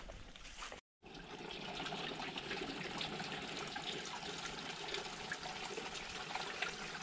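Water trickling steadily into a small spring-fed pool among limestone rocks, starting about a second in.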